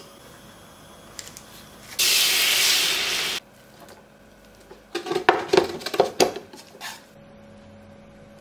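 Cooked spaghetti in a hot frying pan hissing with sizzling steam about two seconds in, for a second and a half, cutting off suddenly. Then a quick run of clinks and clatter as the pasta is stirred against the pan.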